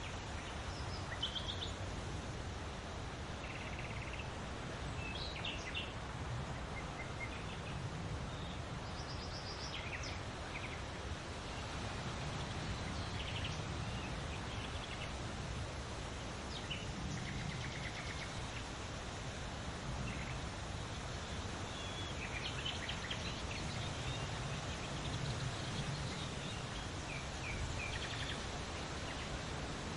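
Wind steadily rustling large leaves, gusting gently in slow swells. Birds chirp briefly and often through it.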